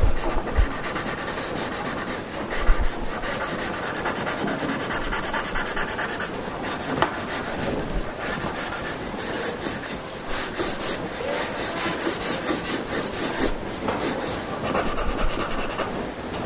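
Graphite pencil rubbing and scratching across drawing paper in quick, broad shading strokes. It is a continuous rough scraping that swells and eases with each stroke.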